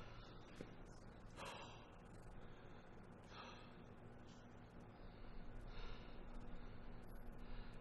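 A man's faint, heavy breathing: a few sharp breaths in and out through the nose, over a low room hum.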